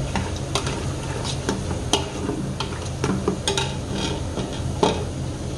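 A metal spoon stirring sliced onions frying in oil in a pot, clicking and scraping against the pot at irregular intervals over a steady sizzle, with a low hum underneath. The onions are still pale, well short of browning.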